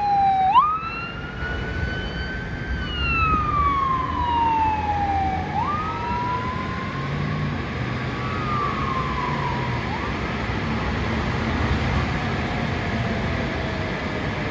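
Ambulance siren on a slow wail, its pitch rising quickly and then falling slowly in cycles of about five seconds. It grows faint after about ten seconds as the ambulance moves away. Road traffic rumbles underneath.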